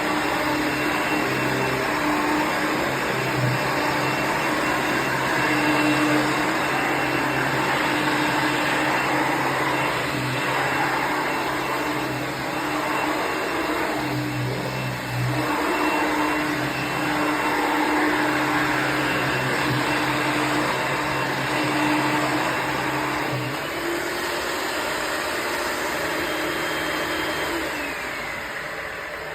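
Dirt Devil Plus upright vacuum cleaner, made by Royal, with an 8.7-amp motor, running steadily with a high motor whine. Near the end the whine glides down in pitch as the motor winds down.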